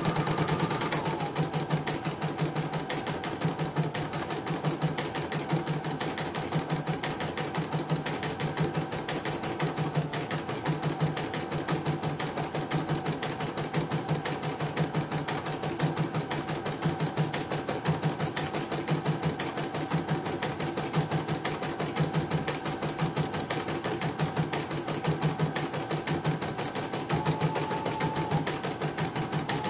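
CNY portable computerized embroidery machine stitching a design: a rapid, even clatter of needle strokes with a faint motor whine, the hoop carriage stepping under it. It is running normally on a test stitch after repair.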